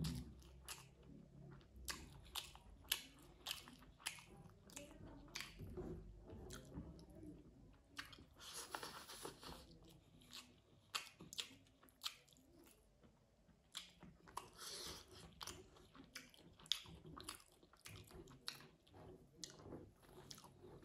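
Close-miked eating: chewing with wet mouth clicks and lip smacks, scattered irregularly, and two longer hissing sounds, about 9 and 15 seconds in.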